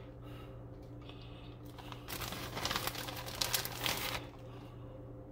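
Clear plastic bag of shredded mozzarella crinkling as a hand digs cheese out of it, loudest from about two to four seconds in, over a steady low hum.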